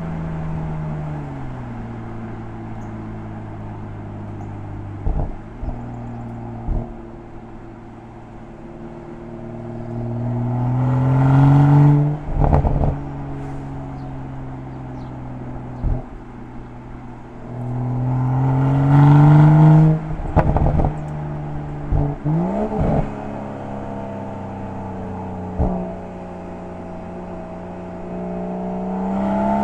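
BMW M340i's turbocharged inline-six heard at the tailpipes of its M Performance Exhaust, running at low revs with scattered single pops. Twice the revs build for a few seconds, then drop back suddenly with a burst of crackles and pops from the exhaust.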